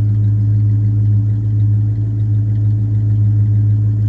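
1966 Ford Thunderbird's V8 engine idling steadily, an even low hum, running smoothly after sitting for several days.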